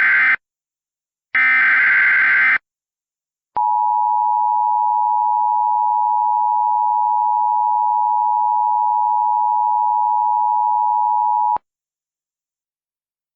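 Emergency Alert System SAME header: the last two of three warbling digital data bursts about a second long each, then a steady attention tone for about eight seconds that cuts off abruptly, signalling the start of a new alert.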